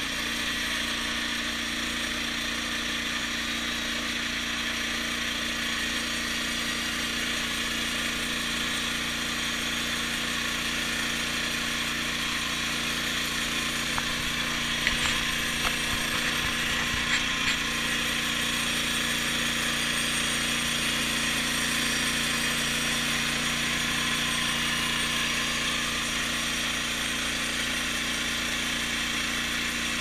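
Norwood LumberMate portable bandsaw mill running steadily, its engine driving the band blade as it saws lengthwise through a log. A few light knocks about halfway through.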